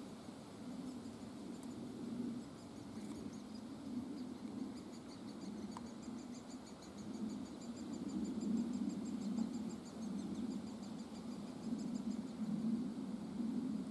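Great spotted woodpecker nestlings calling from inside the nest hole: a fast, high-pitched chatter of rapidly repeated notes, strongest in the second half, over a low steady rumble.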